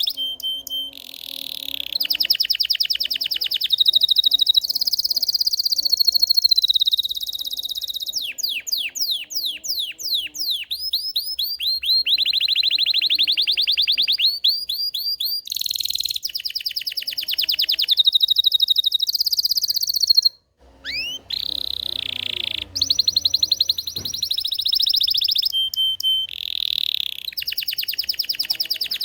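Belgian canary singing a long, fast song of rolling trills and rapidly repeated notes, with a run of quick pitch sweeps about eight seconds in and a brief break about twenty seconds in.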